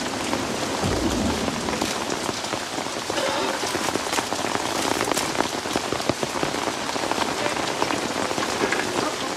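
Heavy rain pattering, with many drops dripping and splashing, heard from inside a thatched hut whose soaked straw roof is giving way. A dull thump about a second in.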